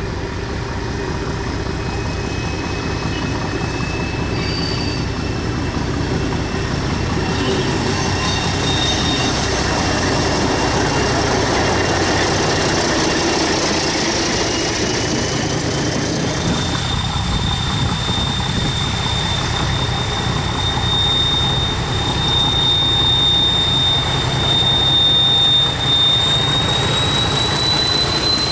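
English Electric Di-class diesel-electric locomotive running slowly past under its own power, its engine running steadily. Over the engine sounds a high whine, which steps up in pitch about halfway through and again near the end.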